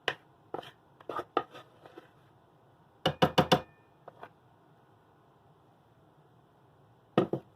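Wooden spoon scraping and knocking against a bowl and baking dish as thick bean dip is spooned out: scattered light clicks, then a quick run of four sharp knocks about three seconds in, and a couple more near the end.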